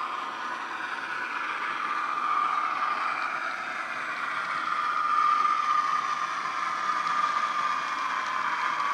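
Australian P Class model diesel locomotive's DCC sound decoder playing a diesel engine running sound through its small bass-enhanced speaker as the model moves. A steady whine sits over the engine noise and wavers slightly in pitch.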